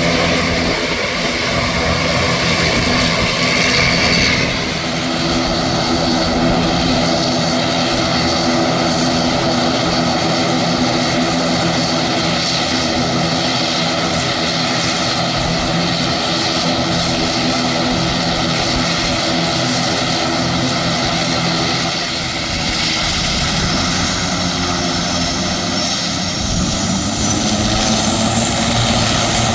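Airliner engines running loud and steady at close range, with a high whine that climbs in pitch over the last several seconds.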